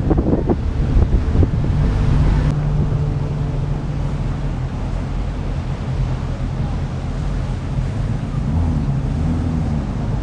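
Wind buffeting the microphone over a car engine's steady low drone, with a few knocks in the first couple of seconds.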